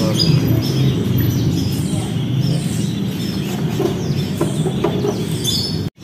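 Caged songbirds chirping in short, scattered calls over a steady low background din, which drops out abruptly for a moment near the end.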